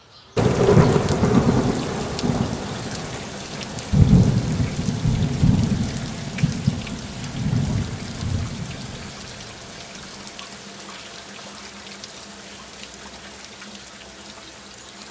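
Thunder rumbling over steady heavy rain: a rumble right at the start, a bigger one about four seconds in that rolls on for several seconds and fades, then only the hiss of rain.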